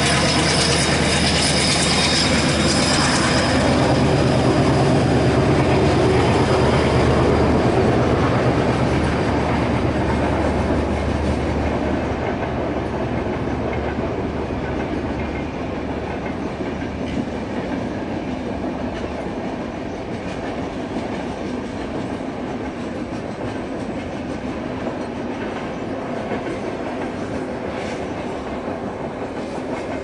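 A WDP3A ALCO diesel locomotive's engine running as the train moves away across a high viaduct; the engine note fades over the first ten seconds or so. It is followed by a steady rumble and clatter of passenger coaches on the track, which grows gradually quieter.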